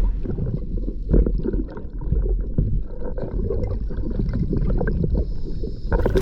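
Wind buffeting the microphone over sloshing water: a loud, uneven low rumble with irregular knocks.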